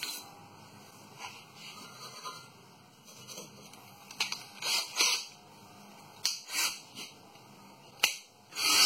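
Short, irregular metal-on-metal scraping strokes as rust scale is knocked off a brake caliper bracket where the pads sit. Near the end a loud, steady power-tool noise starts up.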